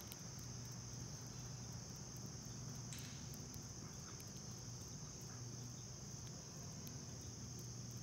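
Steady, high-pitched drone of a background insect chorus, over a faint low hum.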